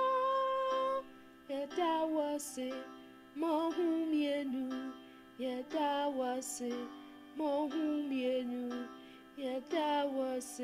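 A woman singing an Akan (Twi) gospel song over steady backing chords. She holds one long note at the start, then sings short phrases with sliding, wavering pitch, pausing briefly between them.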